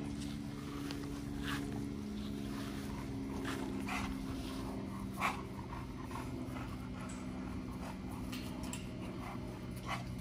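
A group of XL pit bulls around a wire kennel pen, making small dog sounds: a few short sharp noises, the loudest about five seconds in, over a steady low hum.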